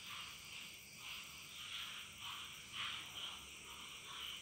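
Faint background calls of small animals, a short high-pitched pulse repeating about three times a second.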